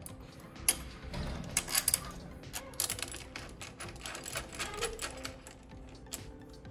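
A wrench working the bolt that holds the exhaust silencer to its hanger bracket: quick runs of small metallic clicks and taps, thickest from about one and a half to three seconds in.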